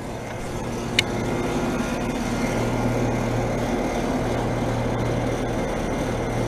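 Outdoor heat pump unit running: a steady compressor hum, with one sharp click about a second in.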